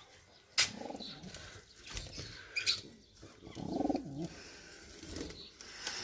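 Domestic pigeons in a wooden loft box cooing and flapping their wings. A sharp knock comes about half a second in, and a low, wavering coo sounds around the middle.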